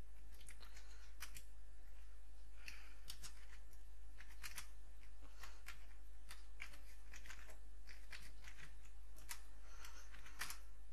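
Computer keyboard being typed on: short, irregular key clicks in bursts, over a steady low hum.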